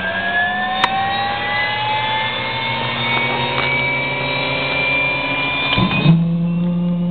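Bell 206 JetRanger's Allison 250 turbine spooling up during engine start, heard from inside the cockpit as a whine rising slowly in pitch. About six seconds in there is a thump, and the sound changes abruptly to a steadier, lower hum.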